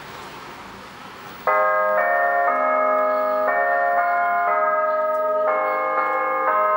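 Church bells starting to play a tune, cutting in suddenly about a second and a half in over a steady background hiss. The chords change about twice a second.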